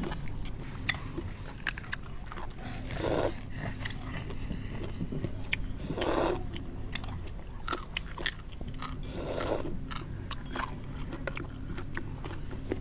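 Close-up chewing and biting of crunchy food from a spicy seafood papaya salad, many sharp crunches and clicks, with three brief louder rushes about three seconds apart over a low steady hum.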